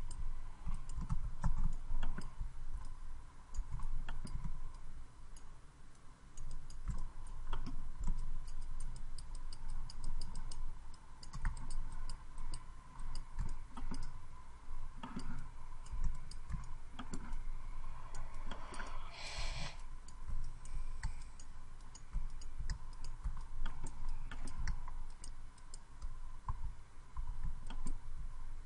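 Scattered light clicks and taps of computer input work at a desk: keyboard keys and a pointing device, with soft low knocks. A faint steady whine runs underneath, and about two-thirds of the way through there is a brief hiss lasting about a second.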